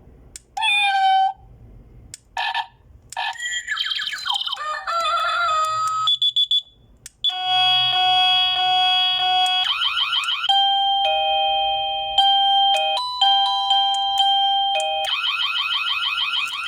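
Plug-in wireless doorbell receiver playing one electronic ringtone after another as they are cycled through: short chime melodies, a held electronic chord, a run of two-pitch beeps, and near the end a fast repeating warble, the unit's alarm mode.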